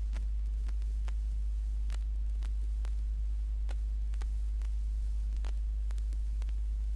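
Surface noise of an old phonograph record soundtrack with no speech on it: a steady low hum under faint hiss, broken by scattered clicks and crackles at uneven intervals.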